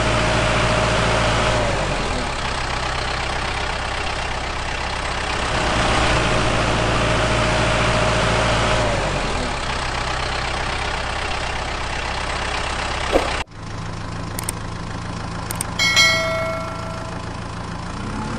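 Recorded heavy engine idling with a steady low drone that repeats as a loop, switching suddenly to a different engine idle about 13 seconds in. After a few sharp clicks, a single bell ding rings about 16 seconds in, from a subscribe-button animation.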